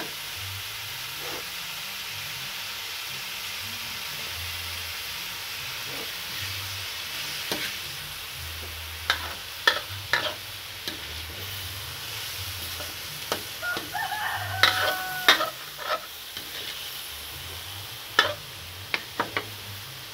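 Winged beans frying in an aluminium wok with a steady sizzle, a metal spatula scraping and knocking against the pan now and then, more often in the second half. A brief pitched animal call sounds about two-thirds of the way through.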